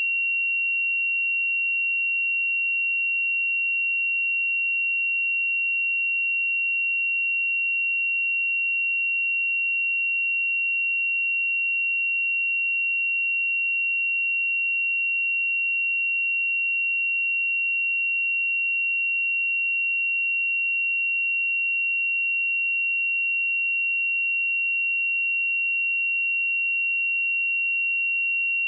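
A pure 2744 Hz sine test tone, one steady high-pitched note held at an even level.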